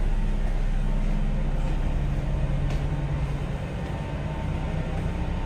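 Steady low machinery hum heard inside a ship's accommodation corridor, from the ship's running machinery and ventilation, with a couple of faint knocks.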